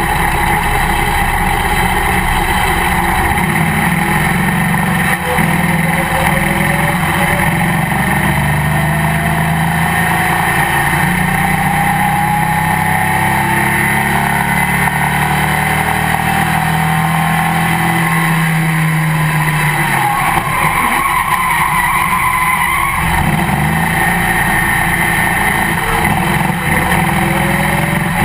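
Race car engine heard from inside the cockpit, loud and steady, with the pitch climbing slowly as the car gathers speed, dropping briefly about three-quarters of the way through, then climbing again.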